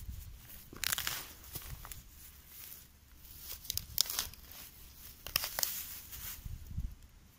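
Digging shovel cutting into grassy turf and soil: crunching and tearing of roots and earth in a few separate strokes, the loudest about a second in, around four seconds and around five and a half seconds.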